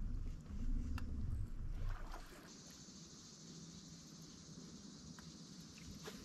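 A low rumble with a sharp click about a second in gives way after two seconds to a faint, steady high-pitched buzz of insects, over a faint low hum.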